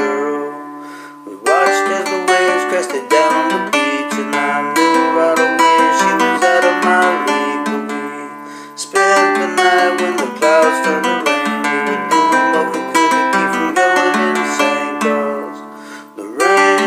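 Classical-style acoustic guitar played solo, strummed and picked chords in phrases, with short pauses about a second in, around eight seconds in, and near the end.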